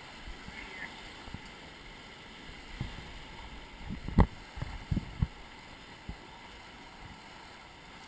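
Steady rush of river water around a paddled raft, with a few dull knocks and thumps between about three and six seconds in, the sharpest about four seconds in.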